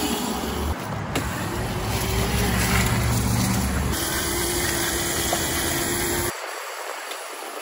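Stock Razor MX500 electric mini bike being ridden: a steady whine from its electric motor over rumble and road noise, heard in several short cuts. About six seconds in, the low rumble drops away, leaving a thin hiss.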